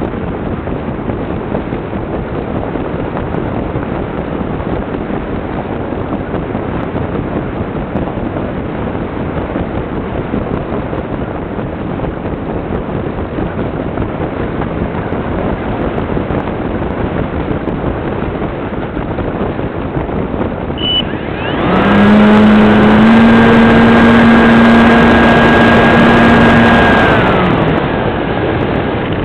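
RC model airplane in flight, heard from on board: a steady rush of air for most of the stretch. About 22 seconds in, the motor and propeller power up with a rising hum and whine that is much louder, hold for about five seconds, then wind down again.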